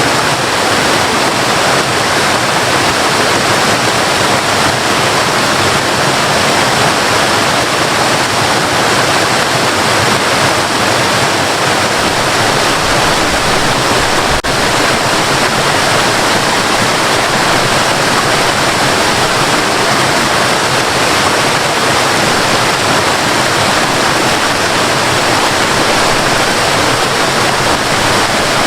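Waterfall: water falling and rushing in a steady, full roar of spray noise that does not change.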